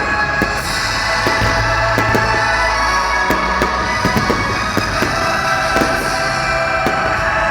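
Rock music with drums and guitar, with irregular sharp bangs and pops of fireworks scattered through it.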